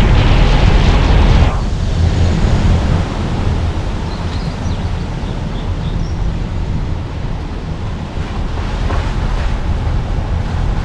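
Car driving along a road: a steady low rumble of tyres and engine. A louder rushing noise over it stops suddenly about a second and a half in.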